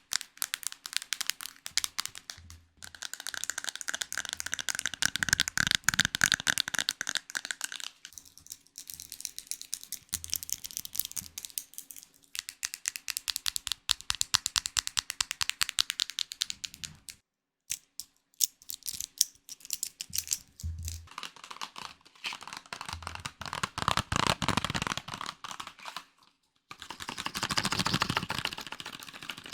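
A series of ASMR trigger sounds: rapid, dense clicking and crackling, like fast tapping or crinkling on small objects. It comes in stretches of a few seconds, each with a different texture, separated by brief pauses.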